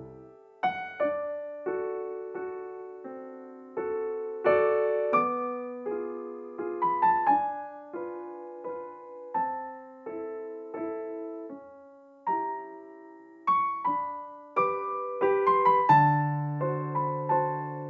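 Background piano music: a melody of struck notes over lower chords, each note starting sharply and fading away.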